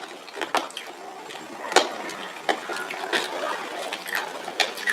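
Scattered sharp clicks and light crackling from a cough drop being handled and unwrapped, about one click a second.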